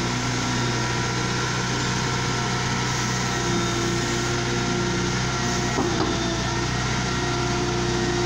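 Liebherr L554 wheel loader's diesel engine running steadily under load as it pushes its bucket into a dirt pile, with a steady whine over the engine note. A brief knock about six seconds in.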